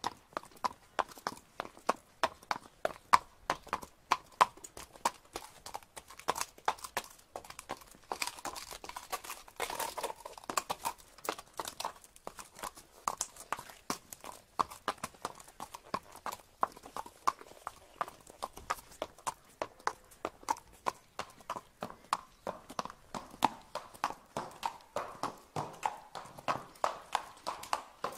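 Horses' hooves clip-clopping at a walk: a steady run of sharp knocks, about two to three a second.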